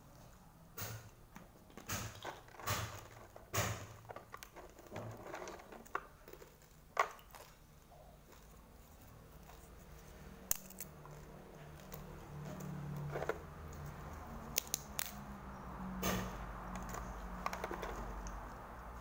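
Crisp fried chips handled and dropped into a plastic jar: scattered dry crackles and clicks, densest in the first half. A low steady hum builds up from about halfway through.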